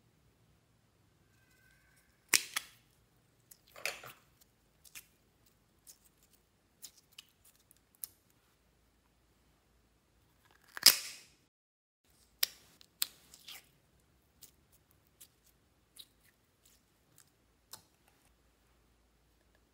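Small plastic slime and clay tubs being handled and opened: scattered sharp clicks and taps. The loudest are a crack about 2.4 s in and a slightly longer crack with a scrape about 11 s in.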